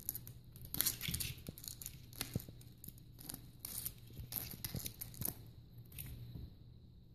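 Skunk biting and chewing a piece of egg omelet: a run of irregular wet clicks and smacks that thins out about six seconds in.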